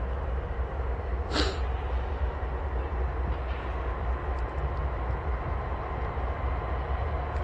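Norfolk Southern GE diesel locomotives rumbling low and steady as the train creeps slowly into the yard, with a short hiss about a second and a half in.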